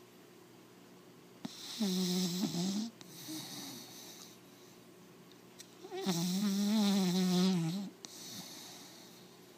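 American Pit Bull Terrier puppy snoring: two snores a few seconds apart, a short one about two seconds in and a longer one about six seconds in, each with a droning pitched note and followed by a softer breath.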